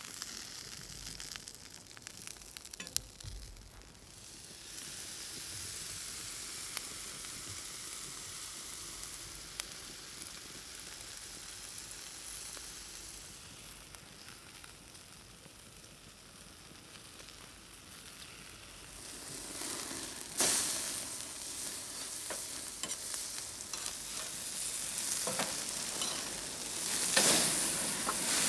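A caul-fat-wrapped stuffed steak sizzling on a hot grill grate over an open wood fire, a steady hiss with scattered sharp crackles of spitting fat. The sizzle swells louder in flare-ups about two-thirds of the way through and again near the end.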